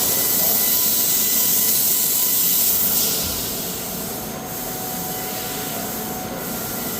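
Metal-cutting machinery running with a steady rushing hiss and a faint whine, easing off about three seconds in.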